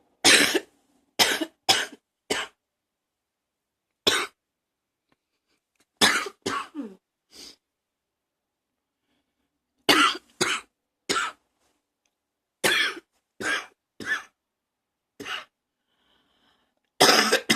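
A person coughing over and over in short bouts of two to four coughs, about sixteen in all, a cough the uploader puts down to allergies.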